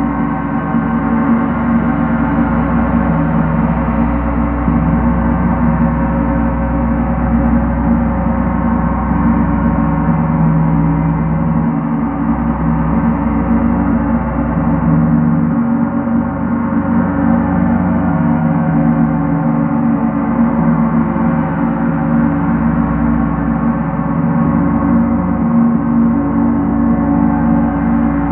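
Large gong played in a continuous soft roll with two felt-headed mallets, giving a steady, dense wash of many overlapping tones with no separate strikes heard.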